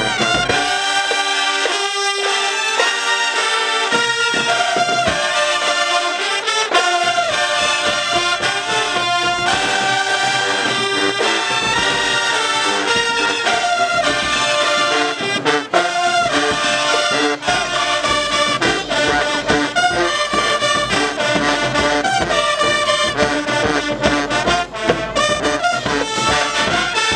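Marching band playing in the stands: a loud, brass-heavy wall of trumpets, trombones, sousaphones and saxophones holding big chords, with sharp drum hits throughout.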